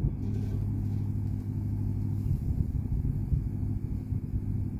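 A steady low engine drone, constant in pitch, with a short knock right at the start.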